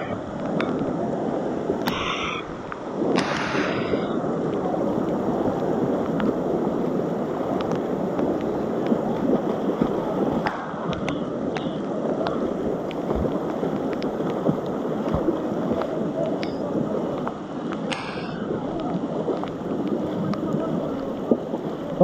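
Steady rushing of a river in flood, fast muddy water running close to the microphone. A few brief louder noises break over it about two, three and a half and eighteen seconds in.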